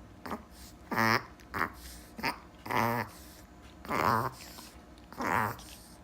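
A dog reverse sneezing: a run of about five short, loud honking inhalations, roughly one every second and a quarter, each rising and falling in pitch. This is a reverse-sneeze spasm set off by irritation at the back of the nose (the nasopharynx), not a cough.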